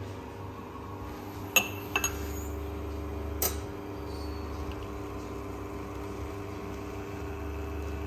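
Espresso machine pump running with a steady hum while a shot is pulled. A glass clinks twice about one and a half to two seconds in, and there is a sharp knock about three and a half seconds in.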